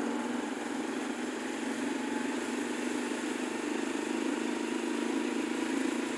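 Motorcycle engine running steadily while it is ridden along a street, heard from the rider's seat.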